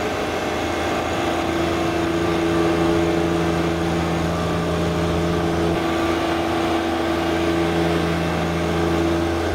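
John Deere 1025R compact tractor's three-cylinder diesel engine running at a steady speed as the tractor drives across the lawn.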